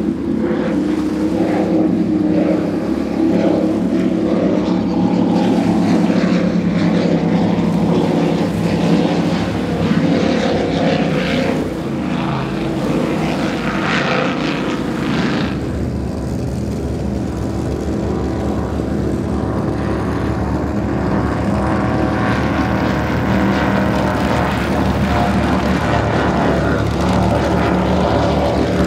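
High-performance offshore powerboats running past at speed, one after another: a loud, steady multi-engine drone whose tone shifts about halfway through. One of the passes is an MTI 340X catamaran on twin Mercury Racing 450R outboards.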